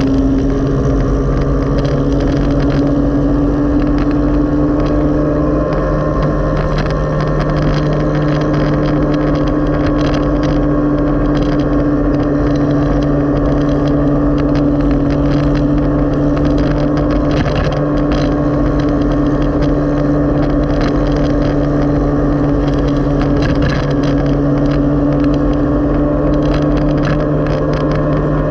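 Tricycle motorcycle engine running at a steady cruising speed, a constant drone that holds nearly the same pitch, with wind and road rumble underneath.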